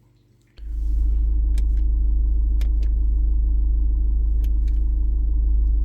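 A car's steady low rumble, heard from inside the car, starting suddenly about half a second in, with a few light clicks over it.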